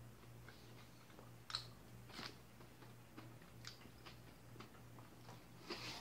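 Faint chewing of a mouthful of salad, with a few brief crunches and clicks spread through it, over a low steady hum.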